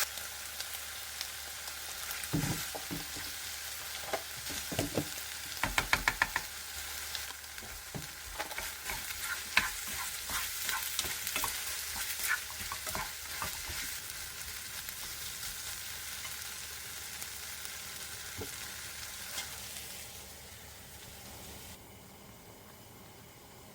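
Food sizzling as it fries in a pan, with a utensil tapping and scraping against the pan and a quick run of taps about six seconds in. The sizzle fades near the end.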